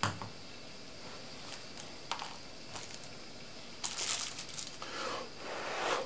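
Handling noise from the battery and its wires: a few light clicks, then crinkling of the aluminium foil the battery rests on, loudest about four seconds in, with a softer rustle near the end.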